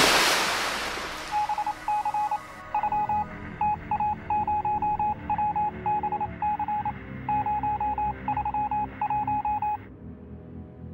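Morse-code beeping at one steady pitch, in rapid irregular groups of short beeps, stopping shortly before the end. It opens over a loud hiss that fades over the first two seconds and then cuts off.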